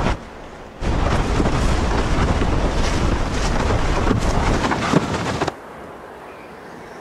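Loud wind buffeting a microphone, a rough, rushing noise. It drops out abruptly for under a second just after the start and again about five and a half seconds in, leaving a much quieter hiss.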